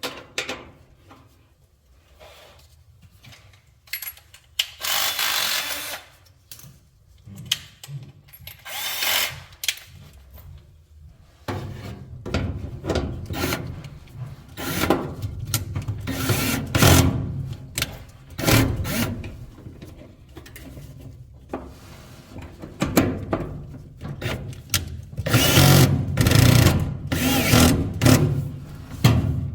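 Repair work on a clothes dryer: short, irregular bursts of a power drill-driver mixed with rubbing and scraping of parts. The bursts are sparse at first and come thicker and louder from about a third of the way in.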